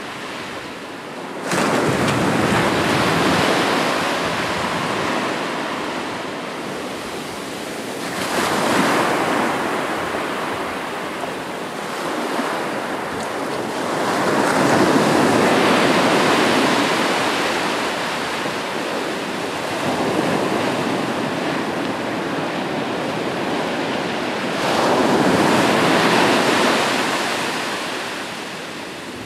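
Ocean surf: waves breaking on the shore one after another, about every six seconds, each a rush of noise that swells and then fades. The first breaks suddenly about a second and a half in.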